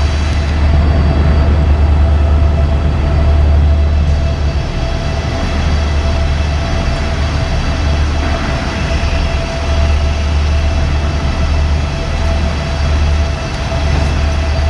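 Diesel train engine idling at a station platform: a steady low rumble with a constant hum above it.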